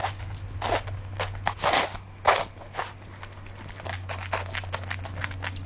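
Close-miked eating: a string of irregular crunches and crackles of food being bitten and chewed.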